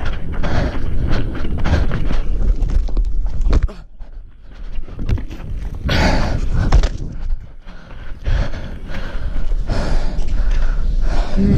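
Wind rumbling on the microphone of a camera carried at a run, with running footsteps and heavy breathing, quieter for a moment about four seconds in.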